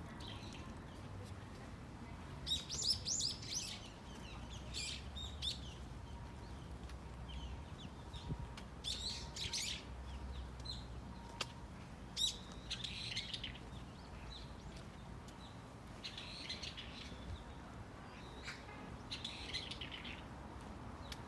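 Small forest birds chirping in short bursts of rapid, high twittering, a new burst every few seconds, over a faint low rumble.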